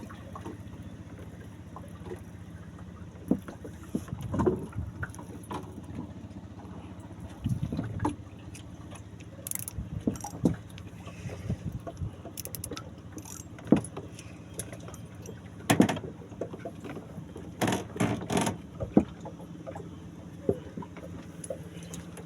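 A small fishing boat's engine running with a steady hum, with scattered knocks and clatter on board.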